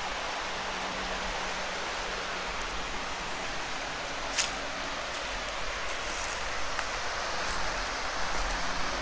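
Steady rushing of a mountain stream, with one sharp click about four and a half seconds in.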